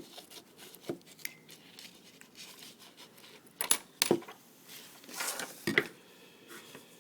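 Hand tools and small metal and plastic fitting parts being handled: scattered sharp clicks and clinks, with a cluster of clicks and a short scrape a little past the middle.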